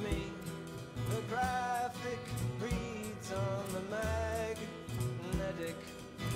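Folk song: a man singing over strummed acoustic guitar and upright bass.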